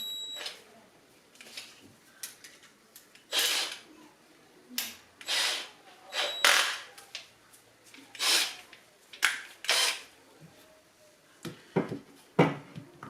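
Tools working on a BMW GM 6-speed automatic transmission's valve body to remove its shift solenoids: about nine short, irregular scraping and clicking bursts of tool on metal.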